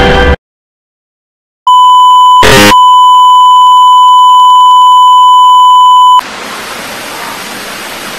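Music cuts off abruptly. After about a second of silence comes a loud, steady television test-tone beep over colour bars, broken by a short burst of noise soon after it begins. After about four and a half seconds the beep stops and gives way to a quieter steady hiss of static.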